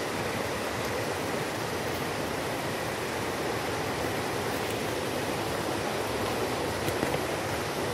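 Steady rushing of water from a stream or waterfall, an even hiss with no change in level.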